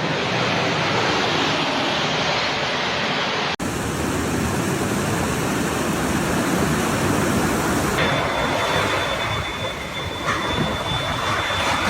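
Storm wind and heavy rain making a loud, steady rushing noise on the microphone, broken by abrupt cuts about three and a half and eight seconds in. A faint, steady high tone joins after the second cut.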